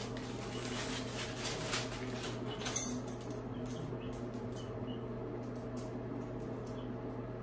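Crumpled kraft packing paper rustling and crinkling for about three seconds, ending in one sharp crackle. After that, a few faint small clicks as a keychain is handled, over a steady low hum.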